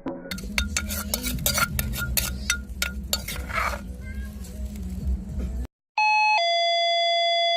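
A run of sharp clicks and taps over a low hum. Then, about six seconds in, a two-note falling 'ding-dong' chime like a doorbell, the lower second note held until it cuts off suddenly.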